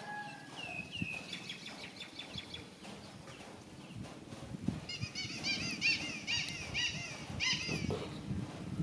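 High-pitched animal chirps: a few falling chirps about a second in, then a rapid run of repeated arching chirps from about five to nearly eight seconds in, over low rustling and knocking.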